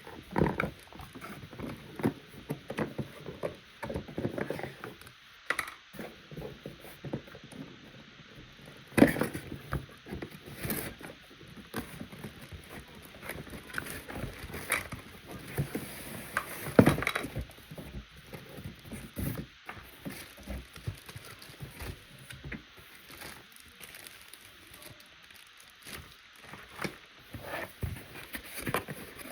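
Irregular clicks, knocks and light rattles of a Silvercrest 2-in-1 vacuum cleaner's plastic parts being handled, with two louder knocks about nine and seventeen seconds in. The motor is not running.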